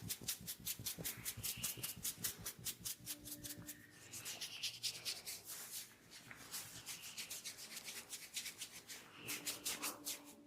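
Hands rubbing briskly over hair and scalp during an oil head massage, in quick, even strokes several times a second.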